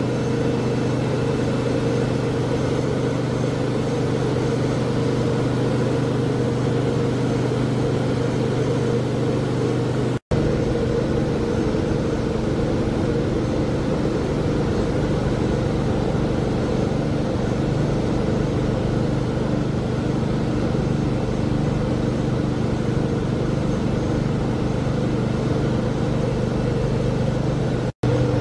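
Ferry engine-room machinery running: a steady, loud drone with held low hum tones. It drops out for an instant about ten seconds in and again near the end.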